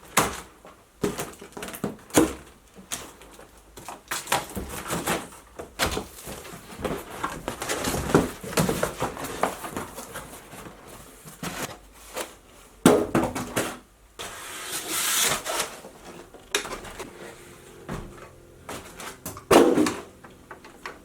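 Unboxing noises from a cardboard box: packaging rustling and scraping, with irregular knocks and thuds as the parts are handled and lifted out. There is a long rustle about two-thirds of the way through, and the hardest knocks come at about 13 seconds and near the end.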